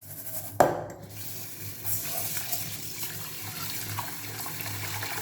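A sharp knock about half a second in, then a kitchen tap running steadily into the sink.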